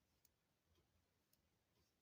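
Near silence, with two faint clicks of a crochet hook working stitches in yarn.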